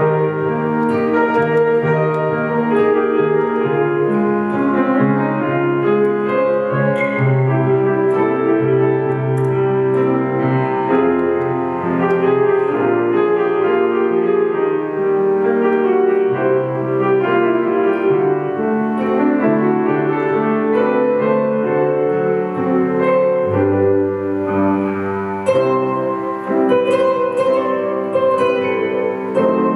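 Grand piano and acoustic guitar playing an instrumental piece together, the piano's held chords and melody to the fore.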